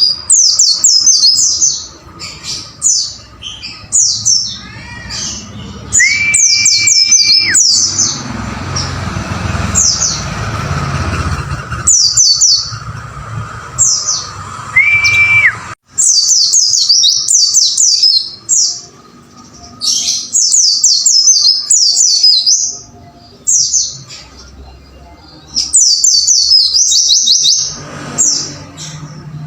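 White-eyes (pleci) singing the 'wucit wucit' call as a masteran tutor song: repeated quick bursts of high, falling chirps with short gaps between them. A level whistle is held twice, and a hiss swells up in the middle.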